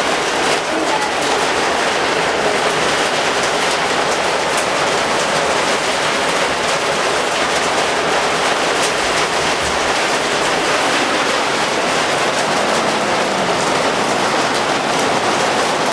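Heavy rain with hail pelting down: a loud, steady, dense clatter of many small hits.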